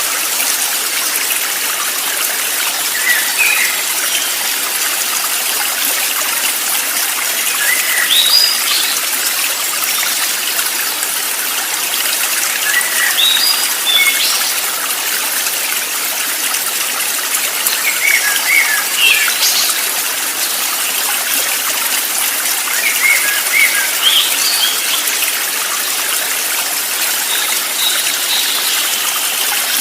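Running stream water trickling and gushing steadily, with small birds giving short high chirps every few seconds.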